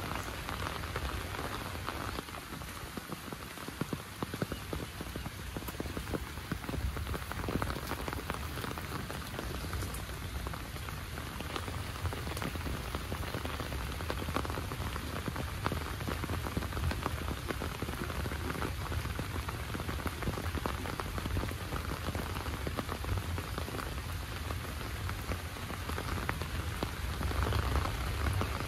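Steady rain falling, a dense patter of many small drops over a constant hiss.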